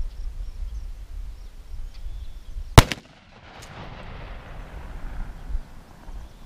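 A single 12-gauge shotgun blast from a Mossberg Shockwave firing 2¾-inch 00 buckshot, about three seconds in, followed by an echo that dies away over the next couple of seconds.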